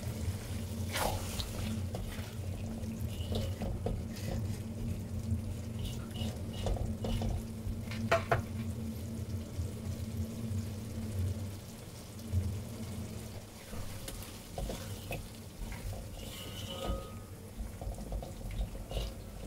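A spatula stirs and scrapes a thick, simmering curry in a steel kadai, with scattered short clicks and scrapes of the spatula against the pan. Under it runs a steady low hum that fades out about two-thirds of the way through.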